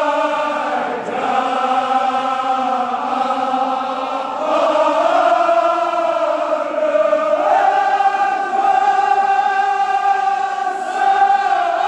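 A chorus of men's voices chanting a Kashmiri marsiya, a mourning elegy, in unison with long held notes. The pitch steps up about two-thirds of the way through.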